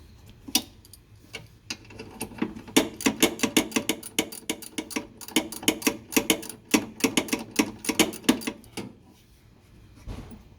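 A 72-tooth hand ratchet wrench clicking rapidly as it is worked back and forth on a bolt. There are two runs of about five clicks a second with a short break between them, and then the clicking stops.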